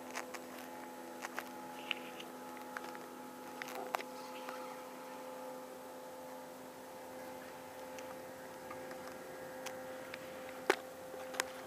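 A steady hum with a few scattered sharp clicks, two stronger ones near the end.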